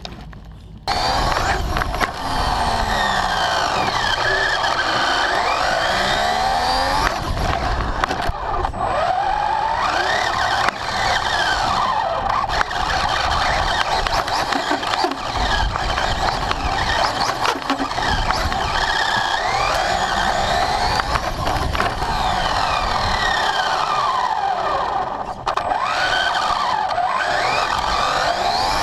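Traxxas Slash RC car driven hard, its electric motor and drivetrain whining in pitch that sweeps up and down with the throttle. Tyre and ground noise runs under it, with scattered sharp knocks. It starts about a second in.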